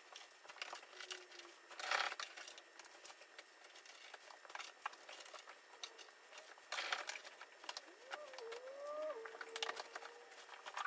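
Cat litter scraped and rustled in a litter box, gritty scratching with louder scrapes about two seconds and about seven seconds in. Near the end a Turkish Van kitten mews, a short cry that rises and falls in pitch.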